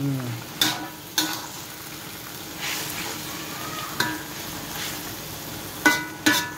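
A metal spatula stirs and scrapes leafy greens in a sizzling wok. Its blade strikes the pan with several sharp metallic clinks.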